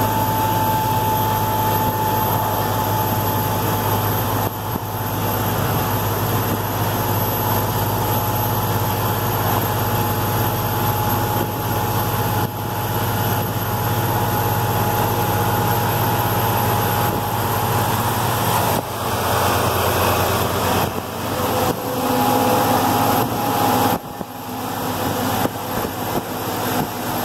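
Heavy truck engine droning steadily inside the cab at highway speed, with road noise. The low hum falls away about two-thirds of the way through, and new engine tones come in near the end as the cab draws alongside a loaded log truck.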